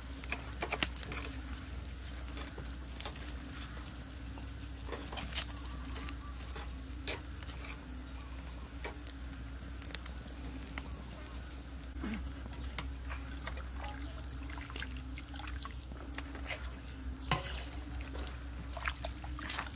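Wood fire crackling under a wire grill of roasting onions and garlic, with scattered sharp pops over a steady low hum.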